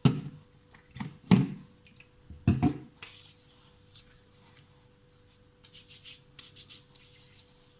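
Hands rubbing together as hand sanitizer is worked in, a soft rustling with quick strokes. Three louder short knocks come in the first three seconds.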